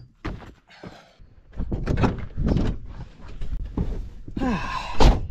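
Knocks and thumps from someone climbing on and moving about a camper van, ending in one loud thud about five seconds in.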